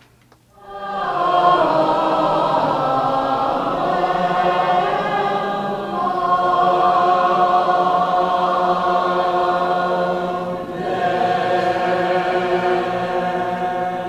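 A group of men and women singing together in harmony in long held chords. The singing comes in three long phrases, with short breaks about six and ten and a half seconds in.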